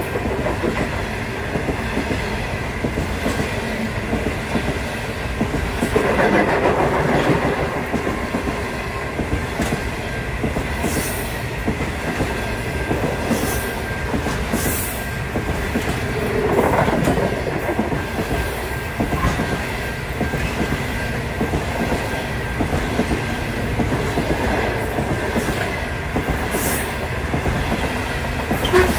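Indian Pacific passenger train's stainless-steel carriages rolling steadily past, wheels clicking over the rail joints, with a few short high squeals from the wheels.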